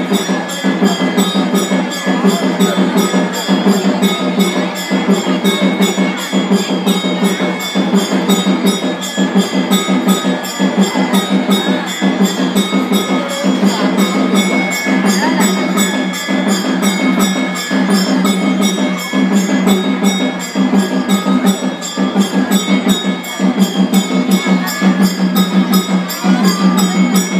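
Traditional South Indian temple music: a fast, steady percussion beat with jingling cymbals over a sustained drone.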